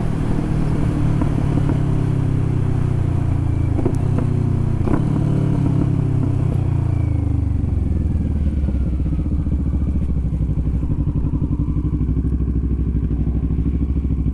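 Harley-Davidson V-twin motorcycle engine slowing from a run, with two knocks about a second apart midway. It then settles into a steady, pulsing low idle.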